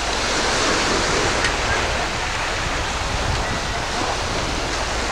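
Steady rushing noise of surf and wind on a pebble beach.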